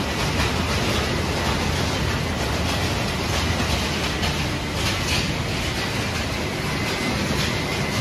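Refrigerator recycling line running: a steady machinery hum and rumble from the conveyor and drive motors, with a continuous light rattle of shredded fragments.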